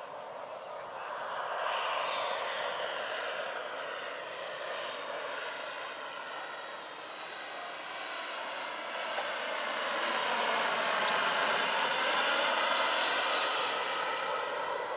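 Turbine engine and rotors of a large, roughly 1/5-scale radio-controlled Bell 412 helicopter in flight: a rushing noise with a thin, high, steady whine. It grows louder over the second half.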